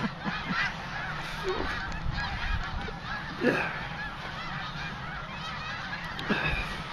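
A large flock of snow geese calling, a dense continuous clamour of many overlapping honks.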